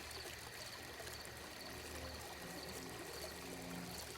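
Soft, steady trickling of fountain water over a low sustained ambient drone, with faint high chirps about twice a second.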